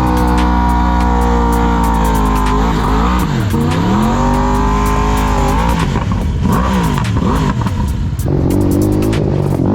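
Quad bike engines running and revving, their pitch holding steady at first, then dropping and climbing again several times.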